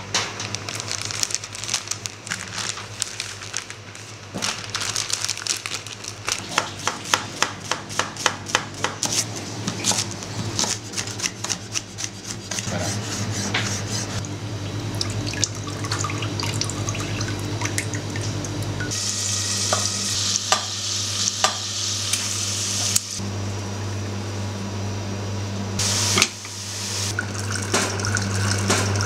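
Kitchen work sounds: a chef's knife chopping quickly on a chopping board, many rapid strokes through the first dozen seconds. After that comes hissing, frying-type noise over a steady low hum.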